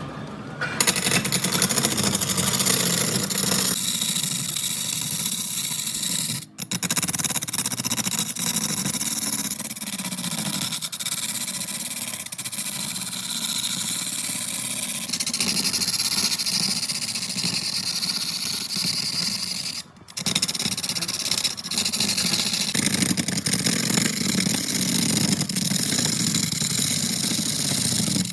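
Heavy woodworking machinery running steadily: a motor's low hum under a loud hissing cutting noise. It drops out briefly twice.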